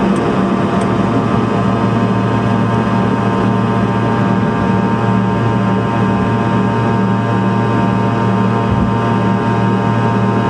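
Fokker 100's Rolls-Royce Tay turbofan engines running at takeoff thrust: a loud, steady drone made of many held tones over a rushing noise, with no change in pitch or level.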